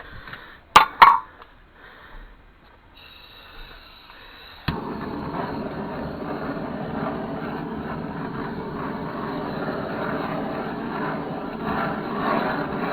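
Two loud clicks about a second in. About five seconds in, a gas blowtorch lights with a click and its flame starts a steady rushing hiss, used to melt lead.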